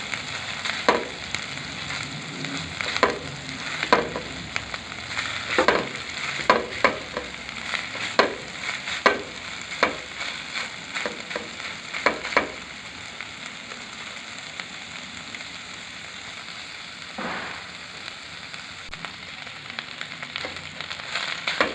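Ginger paste sizzling in desi ghee in a pan on a low flame. For the first twelve seconds or so a spoon scrapes and knocks against the pan as the paste is stirred; after that the sizzle goes on alone.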